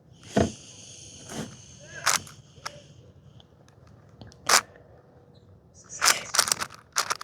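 Plastic 6x6 puzzle cube being turned by hand: sharp clicks of single layer turns a second or so apart, then a quick run of clacking turns near the end.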